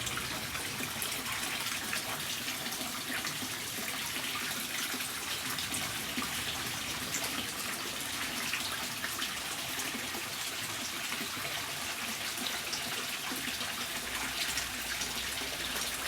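Water running steadily into a hot-spring bath, a constant splashing rush with small splashes throughout.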